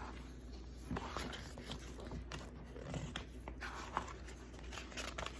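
Soft rustling and a few light taps of paper pages being turned and handled in a tarot guidebook.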